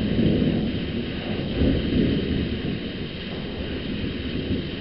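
Thunder rumbling low and slowly dying away, with a small swell about two seconds in, over the steady hiss of rain.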